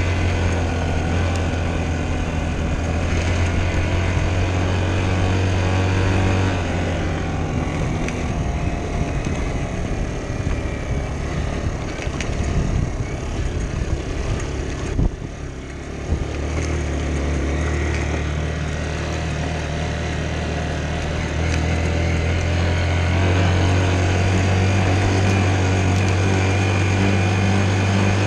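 Dirt bike engine running while riding on a dirt track, its note shifting with the throttle. There is a brief dip and a click about halfway through.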